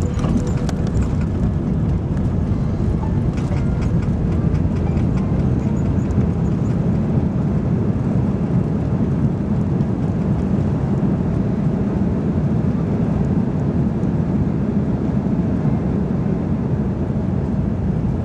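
Cabin noise inside an Airbus A330 moving slowly on the ground after landing: a steady low rumble of the engines and the rolling gear. There are a few light clicks and rattles near the start.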